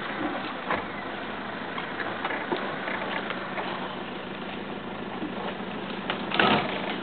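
Vehicle engine idling steadily, with a short louder burst of noise about six and a half seconds in.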